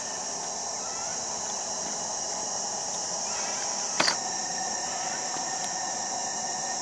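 Steady high-pitched chorus of insects, with a few faint short rising chirps over it. One sharp click or knock about four seconds in.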